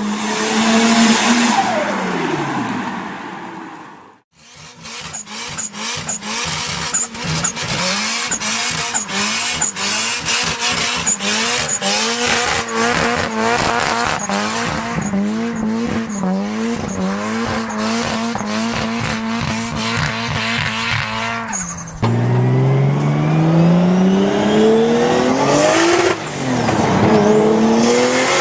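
Tuned turbocharged car engines in three clips. First a car goes past with its engine note falling. Then an engine is held at steady high revs with rapid sharp cracks and a dip in pitch about once a second, like a 2-step launch limiter or anti-lag banging. Last, a car accelerates hard, its note rising, with a gear change about four seconds before the end.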